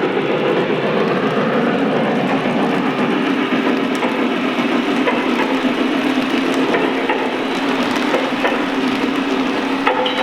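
Lionel Visionline Class A O-scale model steam locomotive running on track, a steady rumble of wheels and motor with light clicks from the rail joints.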